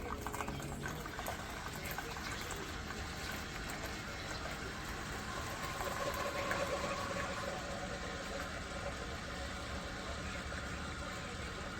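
Keurig K-Brew+Chill single-serve coffee maker brewing, liquid streaming steadily into the cup.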